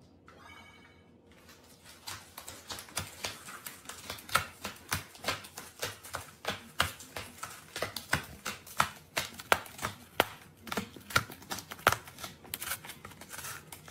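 A cat working at a shallow cardboard tray with its paws and mouth: a quick, irregular run of crisp cardboard clicks and scratches, about three or four a second, starting about two seconds in.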